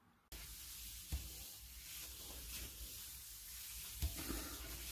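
Faint room hiss with a few soft, brief knocks and rustles, like things being handled close by.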